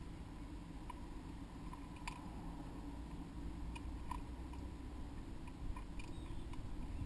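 Birds pecking and tugging at moss: faint, irregular clicks and taps, a few seconds apart, over a low steady hum.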